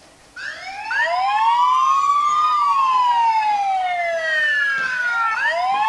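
Electronic siren alarm set off by the Sunluxy BT470 IP camera's motion detection. It wails up for about two seconds and down for about three, starting about half a second in and beginning a new rise near the end. Two slightly offset wails overlap.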